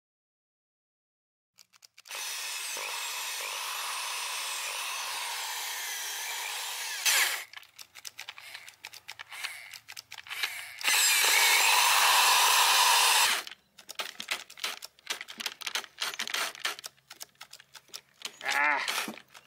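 Old Bosch mains-powered hammer drill running in spurts. Two steady runs of a few seconds are broken by stretches of irregular sputtering and crackling as the motor cuts in and out, the burping and farting from the back end of a drill that won't always start and has no torque. The owner suspects worn carbon brushes or dirt build-up.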